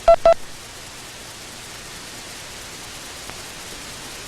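Morse code tone sending two short dits, di-dit: the letter India, a quick two-beat pattern. The two mid-pitched beeps come right at the start, followed by a steady hiss.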